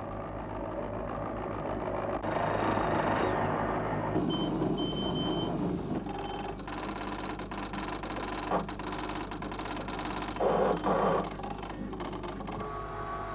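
Airframe fatigue-test equipment running with a steady mechanical whir, with a few short high electronic beeps a few seconds in.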